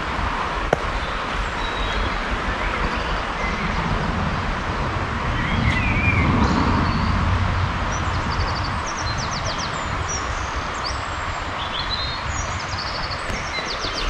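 Woodland birds singing: short whistled calls and a few rapid trills over a steady rushing background noise. A low rumble swells for a couple of seconds about six seconds in.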